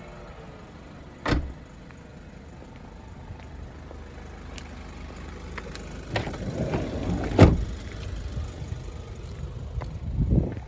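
Ford C-Max doors being worked and shut: a sharp knock about a second in, a stretch of rattling past the middle that ends in a loud slam, and another thump near the end.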